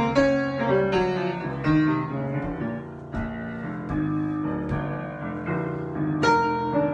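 Solo piano improvisation: chords and single notes struck and left ringing at a slow, free pace, with a louder chord near the end.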